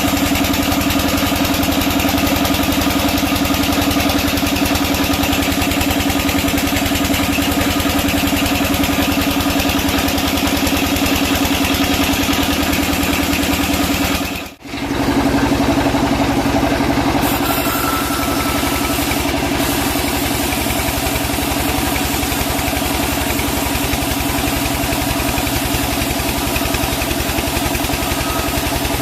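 Sawmill machinery running with a steady, loud mechanical drone and a strong low hum. It cuts out for a split second about halfway through, then carries on unchanged.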